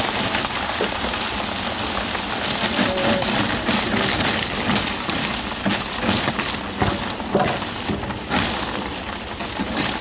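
Concrete mix with stone chips rushing and rattling down a pipe and a makeshift tin chute, with a cement mixer's engine running. The flow is a steady gritty rush broken by many small knocks.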